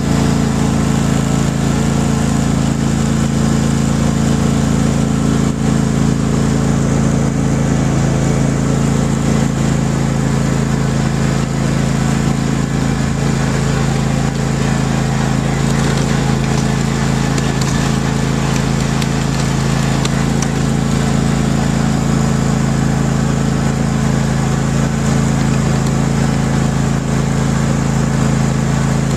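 A motor or engine running steadily at an even pitch, a constant mechanical hum.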